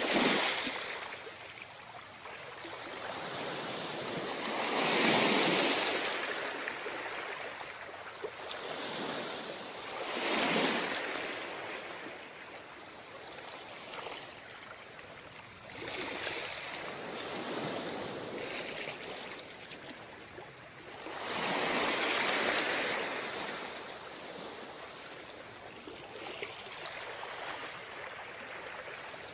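Ocean waves breaking and washing up a beach, each wave surging and then fading into a hiss, with four big breakers about five seconds apart and one more after a longer lull.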